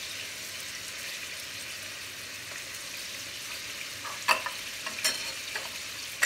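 Beef liver pieces frying over a high gas flame in a pan, with grated carrot and onion laid on top, sizzling steadily. About four seconds in come a few sharp clinks of a metal spoon on a china plate as they are picked up.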